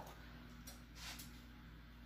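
Near silence: room tone with a steady low hum and a couple of faint, brief soft rustles.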